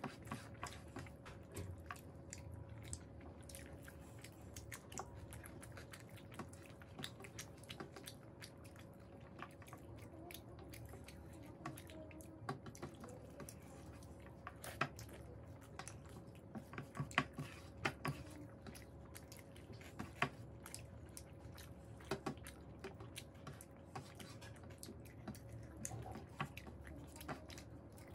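Two people eating rice and curry with their hands: chewing, lip smacks and wet squishes of fingers mixing rice on steel plates, as many small irregular clicks. A faint steady hum runs underneath.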